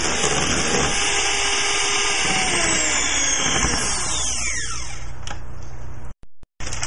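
Small electric motor of a kitchen appliance running at speed, then switched off about four seconds in and winding down, its pitch falling.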